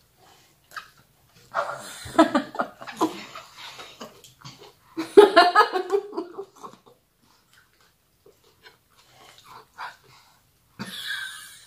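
Wordless vocal sounds from people eating very spicy green mango salad: short cries and breathy yelps, the loudest about five seconds in, and near the end a hiss of air sucked in through the teeth against the chilli heat.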